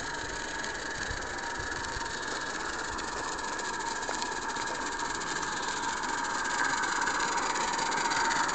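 Garden-scale live-steam locomotive running, a steady hiss of steam with a steady whine over it, growing slowly louder as it comes closer.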